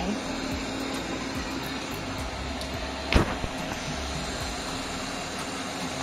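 Eufy RoboVac G10 Hybrid robot vacuum running steadily while wet-mopping, its motor giving an even noise, with one sharp knock about halfway through.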